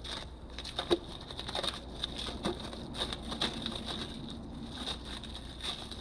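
Scattered light clicks, taps and rustling from brake pads and their packaging being handled.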